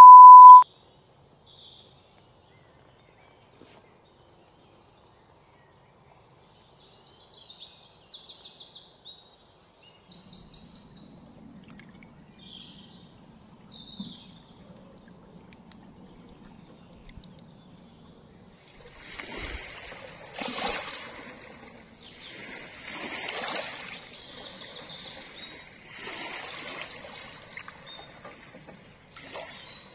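A loud, steady test-tone beep lasting about half a second, the tone that goes with TV colour bars. Then birds chirping in short trills, with a faint low hum in the middle, and in the second half small waves lapping and washing among rocks on the shore.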